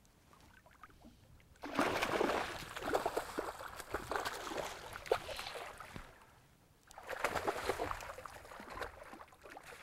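A hooked northern pike thrashing and splashing at the water's surface while being played on a fly rod. It comes in two bouts: the first starts about two seconds in and lasts some four seconds, and the second begins about seven seconds in.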